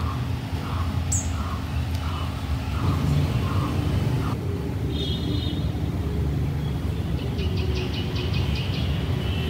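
Outdoor ambience: a steady low rumble with a bird chirping repeatedly, about twice a second, for the first four seconds. After a cut there is a brief high call and then a quick rattling trill of high ticks, about seven a second.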